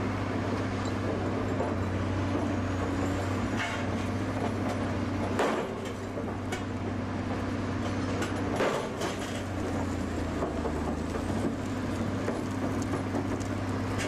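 Heavy slag-handling machinery running with a steady low engine hum, with a few sharp knocks about 3.5, 5.5 and 8.5 seconds in as a Fractum drop-hammer breaker strikes a solidified slag-pot skull and cracks it open.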